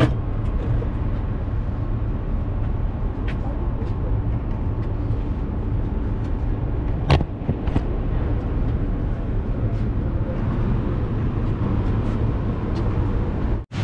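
Steady low rumble of street traffic, with a sharp click about seven seconds in.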